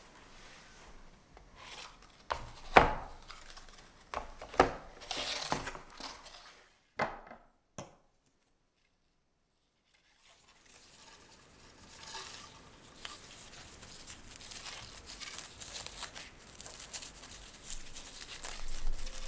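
Close-up handling of satin ribbon. In the first part, plastic ribbon spools are set down with a few sharp clicks and ribbon is pulled off them with short rasping sounds. After a brief silence comes steady rustling as the ribbon is cut with kitchen scissors and folded between the fingers into a bow.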